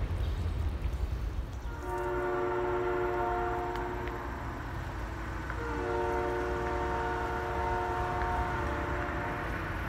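Distant locomotive air horn sounding two long blasts, a chord of several steady notes each held about four seconds, following a low rumble in the first two seconds.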